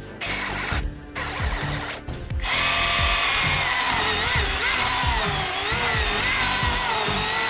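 Background music with a steady low beat. About two and a half seconds in, a cordless electric power tool starts running loudly, its motor whine wavering up and down in pitch as it works under load.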